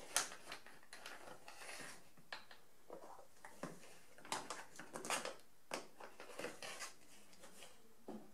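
Small handling noises: light clicks, taps and brief crinkles as a plastic funnel is fitted into the mouth of a foil chemical pouch, ready to pour the bleach back.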